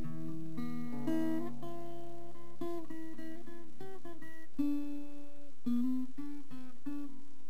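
Background music: acoustic guitar playing a melody over lower sustained notes.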